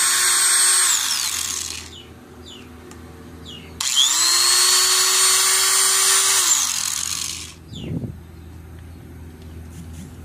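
Electric angle grinder with no disc fitted, test-run at no load. Its motor whines steadily and winds down after being switched off about a second in. It is switched on again about four seconds in, spins up, runs for a couple of seconds, and winds down again. A single thump follows.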